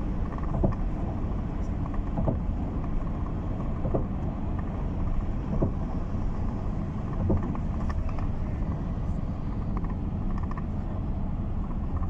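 Steady low rumble of a vehicle in motion, with a faint knock about every second and a half.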